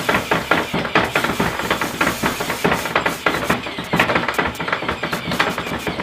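Baby-burping machine's mechanical arm smacking a baby doll's back with a rubber hand, a fast, uneven run of slaps and thumps several times a second.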